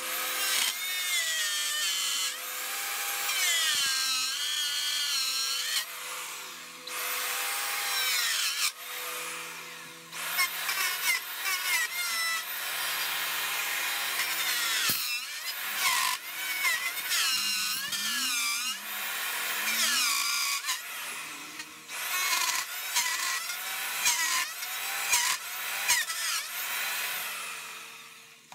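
Handheld electric router with a three-flute flush-trim bit cutting a glued-on birdseye maple top flush with the guitar body. The motor's whine wavers and drops in pitch as the bit bites into the wood, with several brief lulls between passes.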